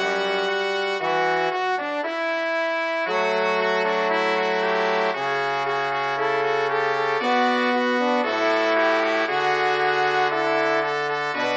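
Orchestral brass section playing held chords that change about once a second over a stepping bass line.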